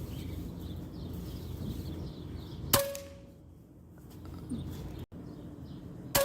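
Two sharp shots from a .22 Hatsan PCP air rifle, about three and a half seconds apart, each followed by a brief metallic ring; the second is the louder.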